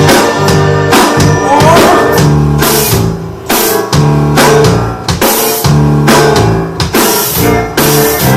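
A live band playing an instrumental passage of a rock song: a drum kit keeps a steady beat of bass drum and snare hits over sustained bass and other instruments, with no singing.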